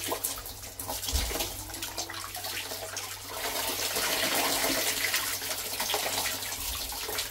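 Water running in a thin stream from above and splashing over a child's head and shoulders during a bath. It is a steady splashing that grows a little louder about halfway through.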